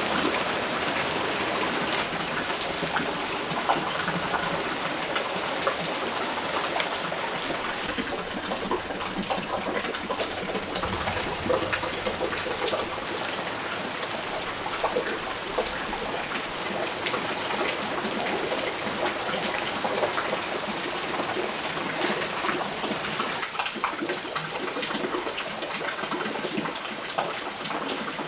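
Steady rain falling during a thunderstorm, an even hiss dotted with many small drop impacts.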